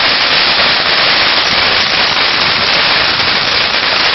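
Russian Fireworks "Tsarsky" ground fountain firework spraying sparks, a loud, steady, dense crackling hiss.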